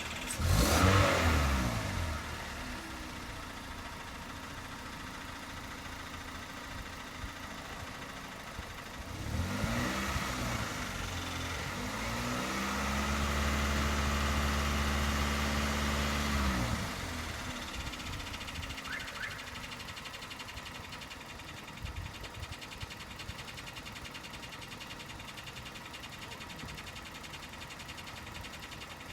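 Toyota 1ZZ 1.8-litre four-cylinder engine idling and being revved: a quick blip about half a second in, another near ten seconds, then held at raised revs for about four seconds before dropping back to idle. The engine has a knock.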